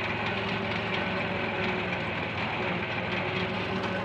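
Tractor's diesel engine running steadily under load, with a mounted reaper cutting through standing wheat. The sound is dense and even, with a faint fast ticking.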